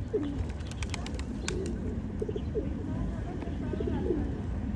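A flock of pigeons cooing, with repeated low, gliding coos and a few sharp clicks about a second in.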